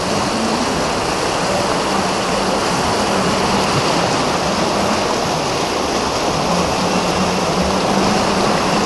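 Whitewater rapids of a canoe slalom course rushing steadily.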